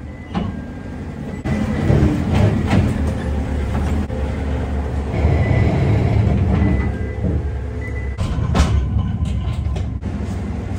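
Forklift running as it pulls up to the rear of the box truck and lifts a loaded pallet off it, giving a steady low rumble. A few knocks and clanks from the forks and the pallet come through it, the loudest about eight and a half seconds in.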